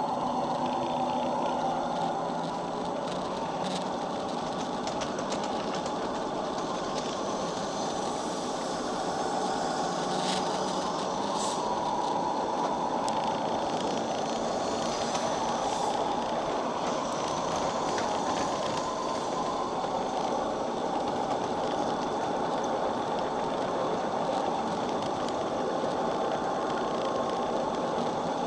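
Home-built 5-inch gauge ride-on model of a MaK 1200 diesel locomotive running steadily along garden railway track: the even running noise of its drive and its wheels on the rails, with a few faint clicks.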